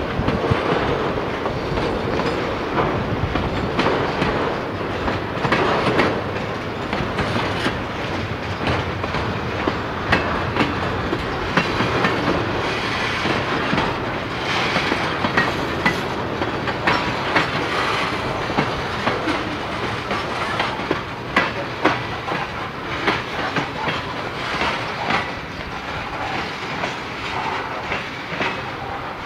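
A Vermont Rail System freight train's cars rolling past: a steady rumble of steel wheels on rail, with clickety-clack and many sharp clanks as the wheels cross rail joints.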